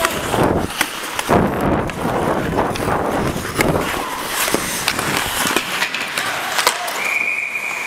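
Hockey skates scraping and carving on the ice with rushing noise, broken by sharp clacks of a stick on the puck and ice. A short high steady tone sounds near the end.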